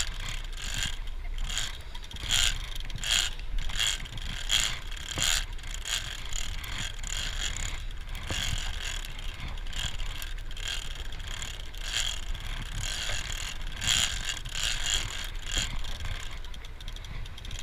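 Large big-game lever-drag fishing reel being cranked by hand to wind in line, its gears and ratchet ticking in short bursts, about one to two a second, with the turns of the handle. A low steady rumble runs underneath.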